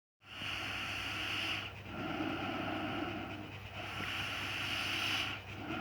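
Person snoring: a hissing breath and a low, rasping snore follow each other in turn, about one full breath every three and a half seconds.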